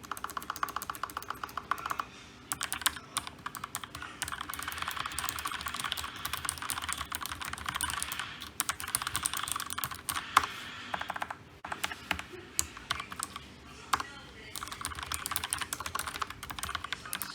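Typing on a computer keyboard: fast runs of key clicks, broken by a few brief pauses, with an occasional louder clack.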